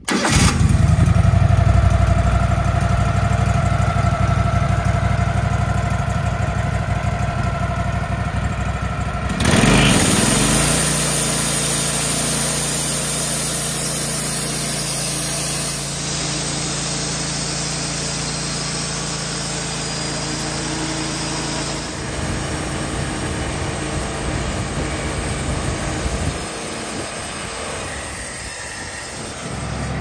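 Wood-Mizer LT15 portable sawmill's gasoline engine starts abruptly and runs steadily. About ten seconds in the sound changes and the band saw runs through an old, partly rotted eastern red cedar log, the engine running under the load of the cut.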